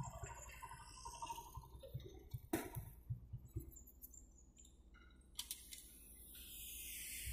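Faint clicks and knocks of a phone being handled close to its microphone. Then, from a little past halfway, a rising hiss of a car coming closer on the dirt road.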